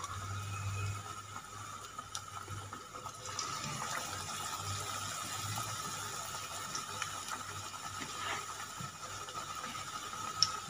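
Battered chicken lollipops deep-frying in hot oil in a kadhai: a steady sizzle and bubbling that grows brighter about three seconds in, as another piece goes into the oil.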